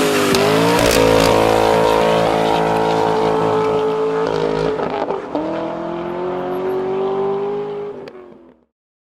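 Chevrolet Corvette V8 held at high revs during a burnout, with tyres squealing. The revs climb in the first second, dip briefly about halfway, then hold again before fading out near the end.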